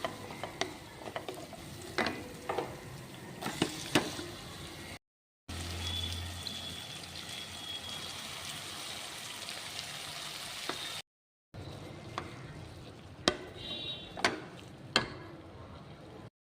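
Food sizzling in a cooking pan, with a spatula scraping and clinking against the pan as it is stirred. The clinks are sharp and irregular near the start and again near the end, while the middle part is mostly steady sizzling.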